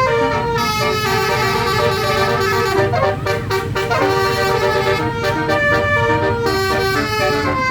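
Bus telolet horn (Basuri musical horn) playing a tune in stepped notes, several tones sounding together, over a steady low engine rumble.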